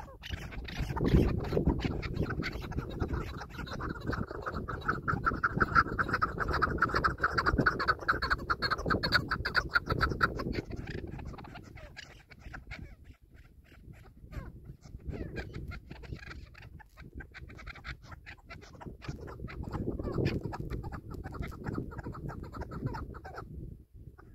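Chukar partridge calling: a fast run of repeated clucking notes that builds over a few seconds and then trails off into fainter, scattered notes. Wind rumbles on the microphone throughout.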